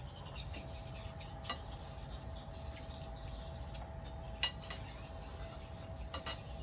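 Spoons and chopsticks clinking now and then against bowls and plates while people eat: a few sharp clinks, the loudest about four and a half seconds in and two close together near the end, over a faint steady hum.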